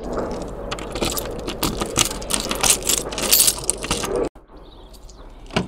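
A bunch of keys jangling and clicking as a key is put into a uPVC door's cylinder lock. The jangling stops abruptly about four seconds in, leaving quieter background.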